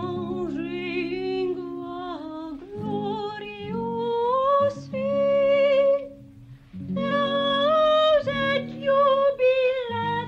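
A woman humming a slow, wordless melody with a wavering pitch over low, sustained accompanying notes; the tune breaks off briefly about six seconds in.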